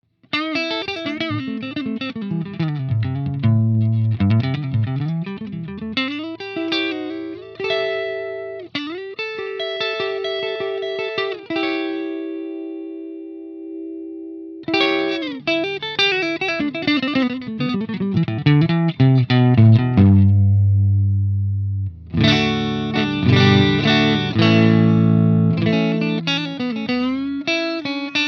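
Electric guitar played through an overdriven valve amplifier: picked riffs and chords, with one chord left ringing and dying away about twelve seconds in, then heavier low chords from about twenty seconds.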